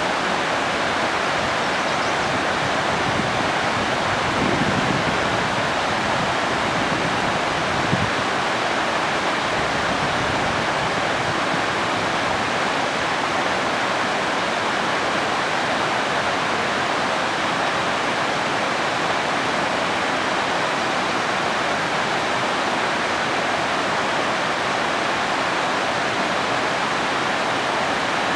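Small creek tumbling down a rocky cascade, a steady rush of water. A single brief knock about eight seconds in.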